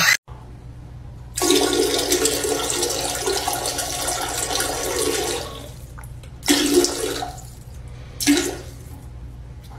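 A toilet flushing, a steady rush of water lasting about four seconds that fades out, followed by two short separate bursts of sound.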